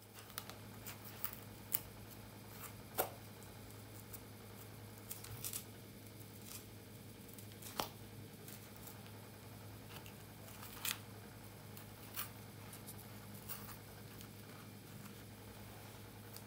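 Fingers unravelling cornrow braids close to the microphone: dry hair strands crackling and rustling, with scattered short snaps, over a steady low hum.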